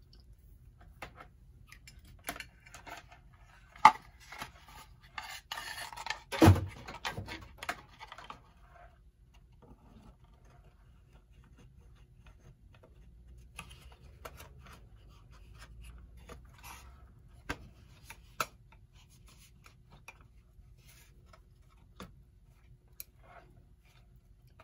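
Clock movement being handled and fitted back into its wooden case: scattered clicks, light knocks and scraping, with a louder thump about six and a half seconds in.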